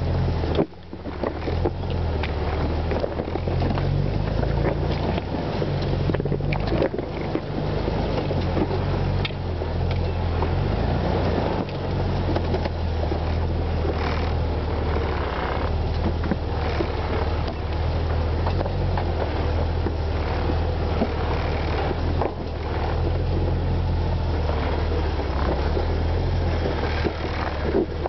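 Jeep engine running at low crawling speed, a steady low drone, overlaid by a buzzing vibration noise from the loosely mounted camera shaking on the Jeep.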